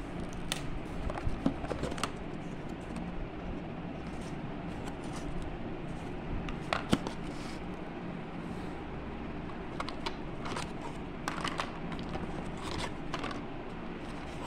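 Paint bottles, a plastic palette and a cardboard box being handled: scattered light clicks, taps and rustles, most of them between about ten and thirteen seconds in, over a steady low background hum.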